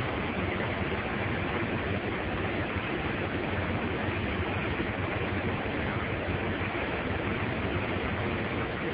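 Steady, even hiss that does not change, with no separate sounds in it.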